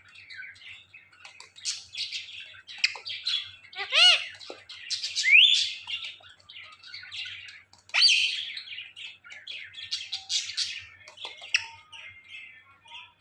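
Ringneck parrot chattering with a run of chirps and squawks, with a short arched call about four seconds in and a rising whistle just after five seconds.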